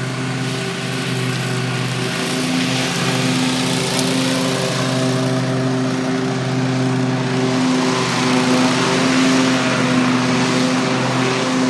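Toro Grandstand stand-on mower's engine running steadily while mowing, its note dipping slightly now and then.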